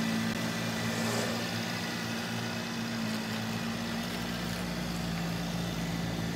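A 2022 Mercedes-Benz GLC 300 running: a steady low hum under an even rush of air.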